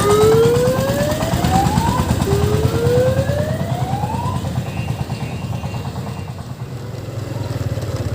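Siren on an odong-odong mini tourist train sweeping upward in pitch twice, each sweep about two seconds long and cutting off at the top, over the steady running of the train's hand-crank-start diesel engine. The engine runs on alone after about four seconds.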